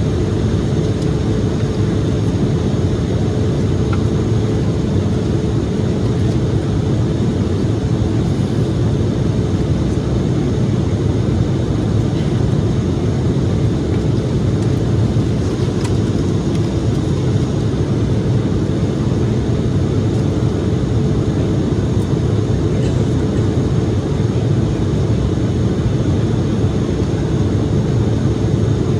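Cabin noise of an Embraer E-175 jetliner in flight: a steady, even rumble of airflow and its turbofan engines, with a faint constant hum.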